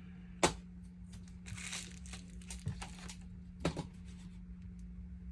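Crinkling and rustling of something being handled, with two sharp clicks, the first about half a second in and the loudest, the second near the end, over a steady low hum.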